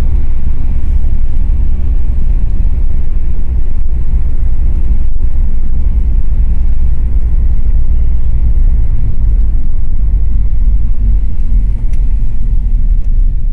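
Loud, steady low rumble heard from inside a moving car: road and engine noise mixed with wind buffeting the phone's microphone.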